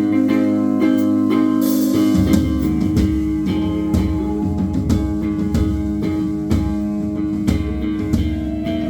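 Live band playing an instrumental passage with electric guitar and drum kit. About two seconds in, a cymbal crash leads into a fuller low end under a steady drum beat.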